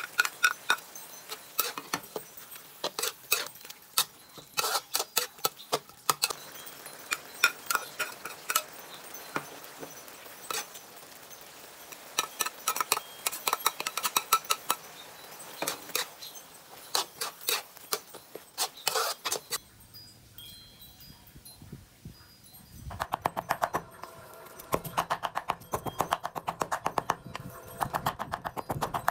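A metal spatula clinks and scrapes against a wok in irregular sharp strikes while ground beef and tomatoes are stir-fried. After a break about 20 seconds in, a cleaver chops rapidly on a cutting board, mincing raw beef.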